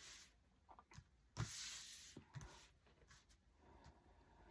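Faint handling of tarot cards on a table: a short sliding swish about a second and a half in, and a few light taps.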